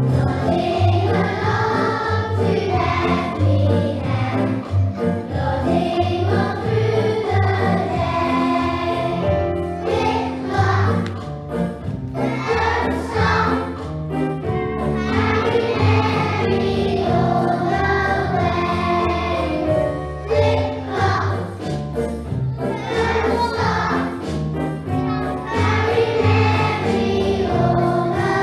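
A group of young children singing a nativity song together over a recorded backing track with a steady bass line.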